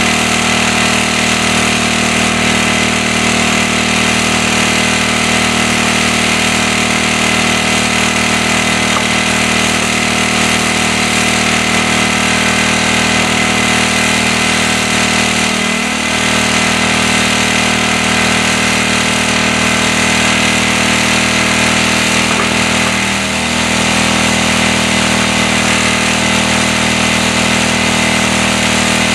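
Portable generator's engine running steadily, dipping briefly in pitch twice, about halfway through and again near three-quarters of the way.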